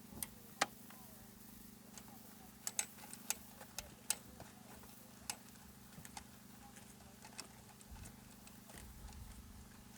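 Scattered sharp clicks and taps of plastic interior trim and screws being handled and fitted, a dozen or so at uneven intervals, over a faint steady hum.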